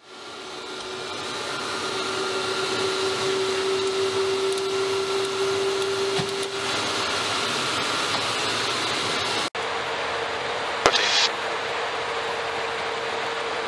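Steady cockpit noise of a KC-135 Stratotanker: a rushing hiss of jet engines and cockpit air, with a steady whine over it, fading in at the start. Two-thirds of the way through, the sound cuts out for an instant and the whine comes back a little higher. A sharp click follows soon after.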